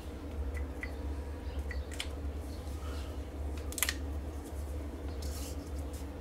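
Steady low hum with soft handling clicks, and one sharp click a little under four seconds in as a felt-tip marker's cap is pulled off.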